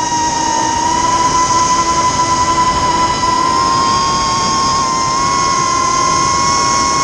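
FPV quadcopter's brushless motors whining steadily over a rushing noise, the pitch stepping up slightly about a second in and again around four seconds.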